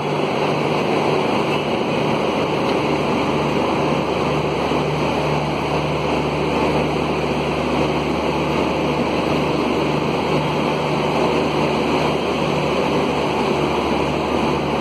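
WAP-1 electric locomotive running with a steady whirring noise and a low hum as it slowly pulls a passenger train out of the station past the listener.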